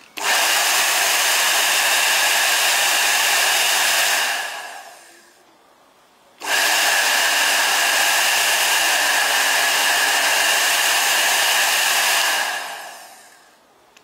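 Slopehill 1800W travel hair dryer with an AC motor switched on and blowing steadily, with a high whine over the rush of air. It is switched off after about four seconds and winds down. About a second later it is switched on again, runs about six seconds, and winds down again near the end.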